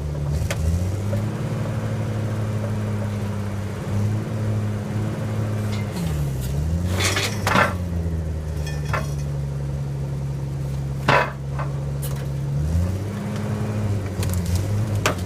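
Homemade firewood processor's engine running steadily, its pitch sagging as it takes load, and held lower for about five seconds in the middle. A few sharp cracks and knocks of wood being split and falling come through it, the loudest at about seven and eleven seconds in.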